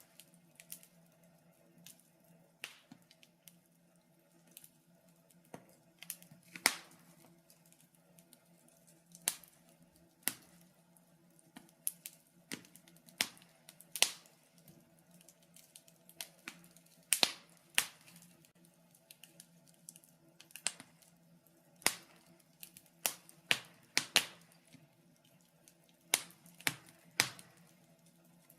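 Wood fire crackling in a fireplace: sharp, irregular pops and snaps, roughly one or two a second and sometimes in quick clusters, over a faint steady low hum.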